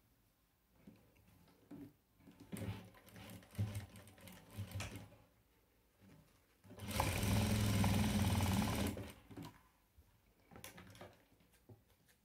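Sewing machine restitching the side seam of a small fabric coin purse where it had slipped out. It runs in short stop-start bursts, then in one steady run of about two seconds near the middle. A few light clicks follow.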